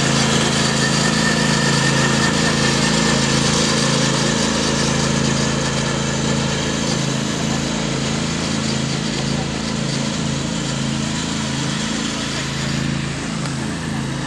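Troy-Bilt riding lawn mower engine running at steady race throttle, gradually fading as the mower pulls away down a dirt track.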